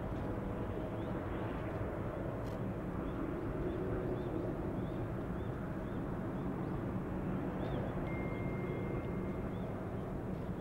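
Jet engines of a Boeing 787 Dreamliner taxiing at low thrust: a steady, even rumble with faint steady tones in it.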